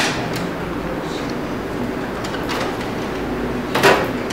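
Front drawer of a DNP DS620 photo printer being unlatched and slid out: a sharp click at the start, a few faint knocks, then a louder clatter near the end, over a steady background noise.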